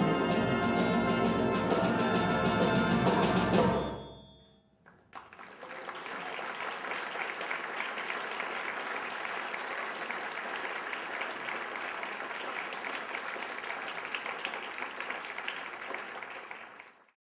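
A marching band of brass and drums playing the final bars of a piece, ending abruptly about four seconds in. After a brief pause, an audience applauds steadily until the sound cuts off near the end.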